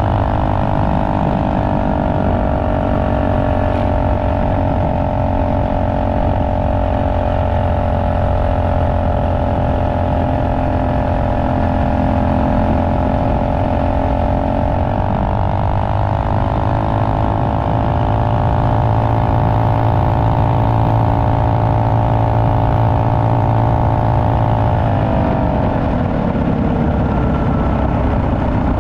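Trailmaster MB200X minibike's Tillotson 225cc single-cylinder engine running under way at cruising speed. The revs climb about halfway through, hold steady, then drop off a few seconds before the end.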